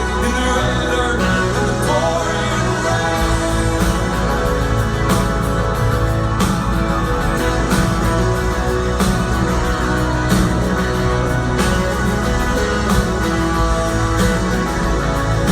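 A live band playing a song: guitars over a steady drum beat, with singing.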